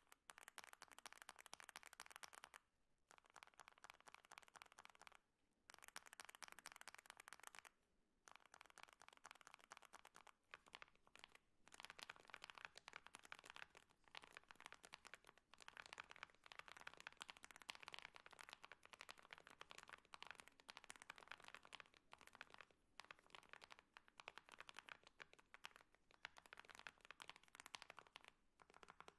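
Fast typing on a mechanical keyboard with Akko Match Green Pro V3 linear switches: a dense run of quiet keystroke clicks, with brief pauses about three, five and eight seconds in.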